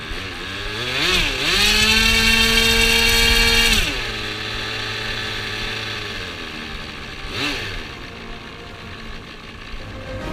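A radio-controlled model airplane's 7.5 cc two-stroke methanol glow engine being throttled: it revs up to a steady high-pitched full-throttle whine for about two seconds, then drops back to a lower steady speed. A single quick rev up and back down comes about three quarters of the way through.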